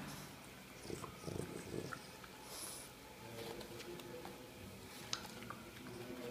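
Boston terrier snuffling and snorting as it chews and tugs at a rubber band, with a few small clicks.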